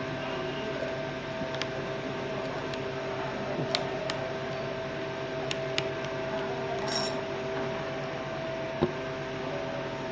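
A steady machine hum with a few faint ticks and taps.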